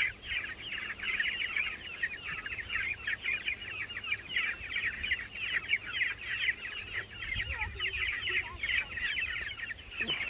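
A flock of young broiler chicks peeping continuously, many short high chirps overlapping one another.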